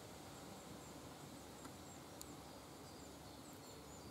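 Quiet ambience with a steady faint hiss and thin, high chirps of small birds repeating throughout. There is a faint tick about two seconds in.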